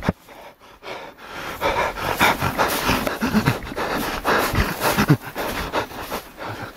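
A person panting heavily in quick, ragged breaths, growing loud about a second and a half in.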